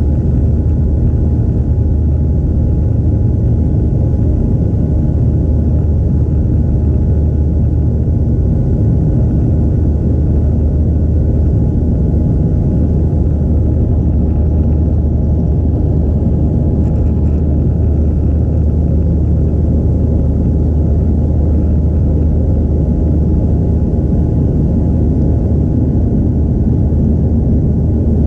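Cabin noise of a Boeing 737-700 climbing out after takeoff, heard from a window seat beside the CFM56-7B turbofan engine: a steady low rumble with a faint steady whine above it.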